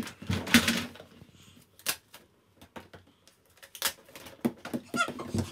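Hollow plastic ball-pit balls knocking and clicking as small children handle them, a few separate light knocks a second or two apart.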